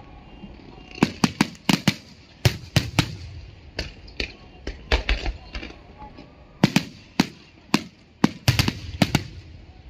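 Aerial fireworks shells bursting overhead in a rapid, irregular series of sharp bangs, several coming in quick clusters of two or three.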